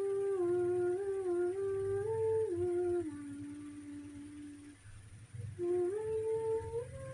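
A woman humming a slow tune, holding long notes that step up and down in pitch, with a brief break about five seconds in.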